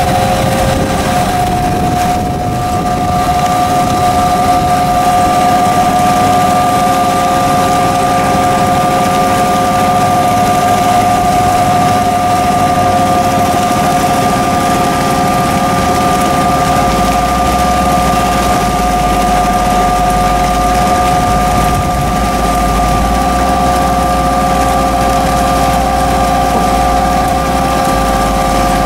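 Electric-powered CEC 6x16 wash plant running: its feeder, screens and conveyors give a steady mechanical noise with a high, steady whine. A low rumble joins a little past halfway through.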